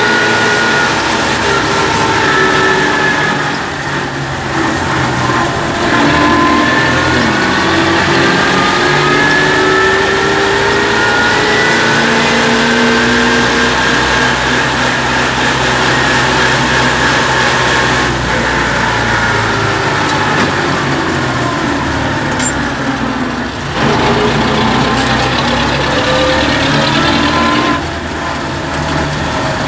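Farm tractor's diesel engine running under way, heard from inside the open cab. Its pitch rises and falls as the engine speeds up and slows, with brief drops around four seconds in and near the end.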